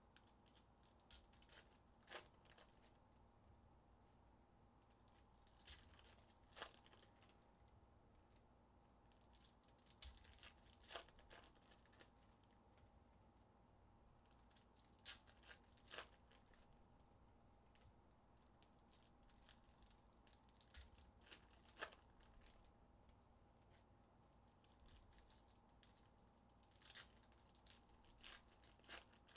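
Faint, scattered crinkling and tearing of trading-card pack wrappers being ripped open by hand, in short irregular bursts a few seconds apart, over a faint steady hum.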